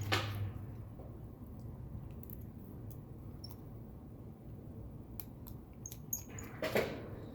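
Faint, scattered small clicks and ticks of a precision tri-wing screwdriver working the tiny screws inside an iPhone 8, with a short hiss near the end.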